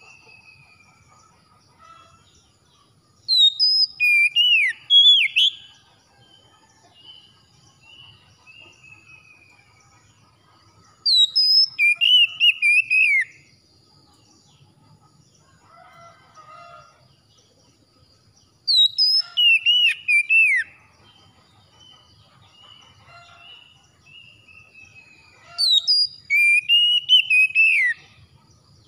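Oriental magpie-robin (kacer) singing: four loud bursts of rich, fast whistled phrases, each about two seconds long and coming about every seven seconds, with soft falling whistles in between.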